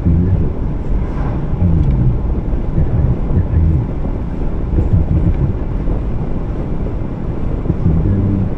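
Car driving along a road: a steady low rumble of road and wind noise on the microphone.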